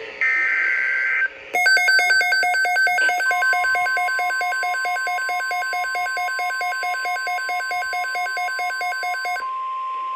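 Emergency weather alert tones. First comes a short screechy burst of digital SAME data header, which ends about a second in. Then an alarm beeps rapidly and loudly for about eight seconds. About three seconds in, the steady 1050 Hz NOAA Weather Radio warning tone comes in under it and carries on alone after the beeping stops.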